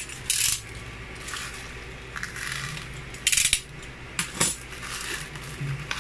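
Plastic courier bag (poly mailer) crinkling and rustling as it is handled and opened, in short sharp crackles; the loudest come about a third of a second in and about three seconds in.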